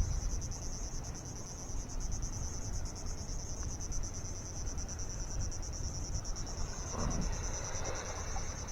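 Steady, high-pitched insect chorus, a continuous fast-pulsing trill, over a low rumble.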